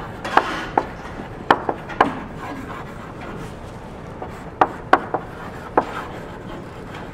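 Chalk tapping and scraping on a blackboard as someone writes: irregular sharp taps with short scratchy strokes between them, a cluster in the first two seconds and another about four to six seconds in.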